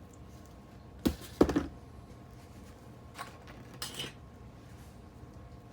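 A few short clicks and knocks of small hard parts being handled and prised off model railroad track: a sharp pair about a second and a half in, the loudest, and lighter ones around three and four seconds in.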